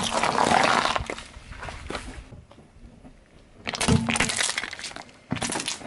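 Car tyre rolling over a pile of pickled gherkins, crushing them with a crackling crunch for about a second. Then the tyre crushes two small plastic food tubs, two bursts of crackling about four seconds in and again near the end.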